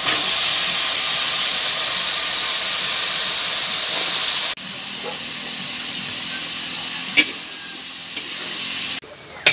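Chicken and sliced green papaya sizzling loudly in a hot wok of oil as the papaya is tossed in by hand. The sizzle drops abruptly about four and a half seconds in and again near the end, with one sharp click about seven seconds in.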